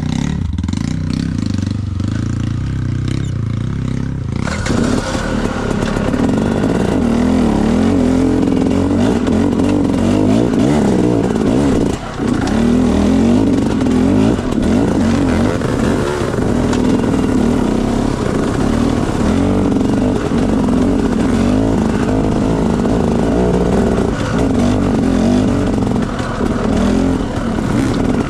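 Dirt bike engine running low for the first few seconds, then revved up about four seconds in and kept pulling hard as the bike rides the trail, with rattling and clatter. The engine note dips briefly near the middle.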